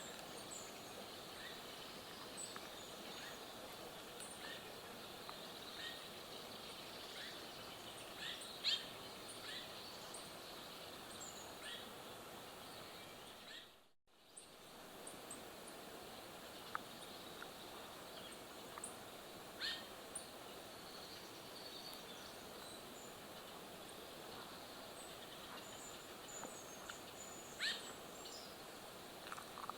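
Quiet forest ambience: a steady hiss with scattered short, sharp bird chirps, a few louder ones about 9, 20 and 28 seconds in. The sound fades out and back in about halfway through.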